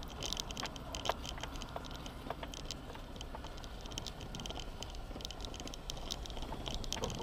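Off-road vehicle driving slowly on a gravel track, heard from inside the cabin: a steady low rumble with irregular clicking and rattling throughout.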